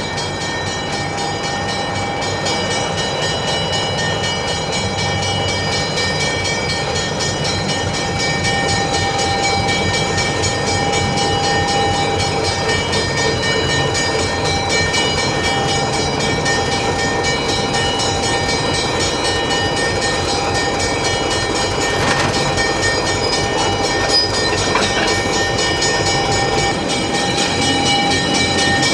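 Narrow-gauge diesel locomotive running steadily as it moves slowly past, its engine drone mixed with the rumble of the wheels on the rails.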